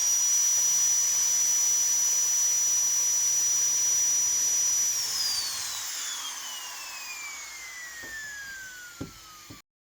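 Small handheld power tool running at full speed with a steady high whine, then switched off about five seconds in, its motor whine falling steadily in pitch as it spins down, with a couple of light knocks near the end.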